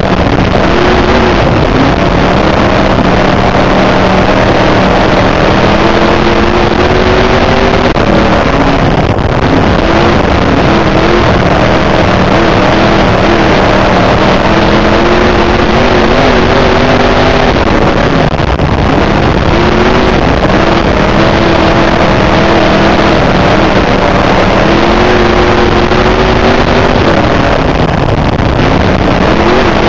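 IMCA dirt modified's V8 engine under race load, heard from inside the cockpit, loud and constant. Its pitch rises and falls over and over, with a brief drop roughly every nine and a half seconds as the car lifts into the turns lap after lap.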